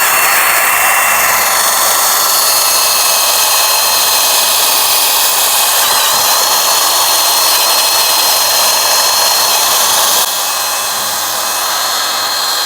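Power sander running with a wet 800-grit disc, wet-sanding a yellowed plastic headlight lens as the first, coarsest step of restoring it. It makes a steady high whine whose pitch dips slightly over the first two seconds and which drops a little in level near the end.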